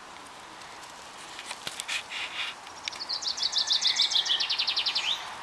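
A songbird sings a quick trill of short, high repeated notes that fall in pitch over about two seconds, starting about three seconds in and ending with a short flourish. A few soft rustles come before it.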